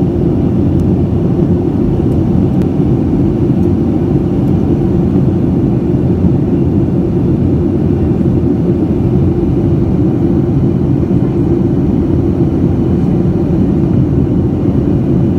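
Jet airliner cabin noise in cruise-like flight, heard at a window seat over the wing: a steady, deep rush of engine and airflow noise that does not change.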